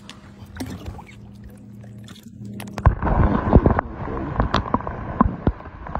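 Lake water splashing and sloshing around a camera that goes under the surface about three seconds in, as a big largemouth bass is lowered into the water by hand for release. Underwater the sound turns loud and dense, with many knocks and sloshes. Before the plunge there is a low steady hum with a few light drips.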